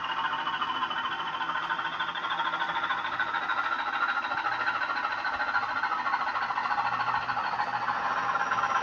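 Sound-fitted Bachmann Class 20 model locomotive running on the layout, its on-board speaker playing a Class 20 diesel engine sound, with a thin whine that rises slowly and steadily in pitch throughout.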